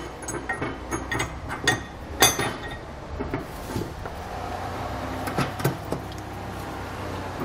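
Small steel fasteners clicking and clinking as a split lock washer and hex nut are fitted onto a carriage bolt and threaded on by hand. The clicks come in a cluster over the first couple of seconds and again about five and a half seconds in, over a steady low hum.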